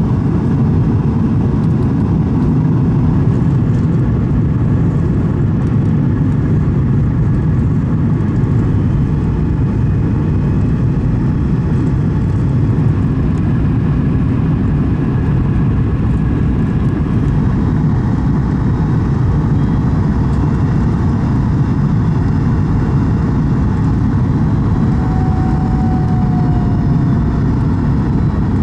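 Steady cabin noise of a Boeing 737 MAX 8 on its descent to landing: a constant low rumble of engine and airflow heard from inside the cabin.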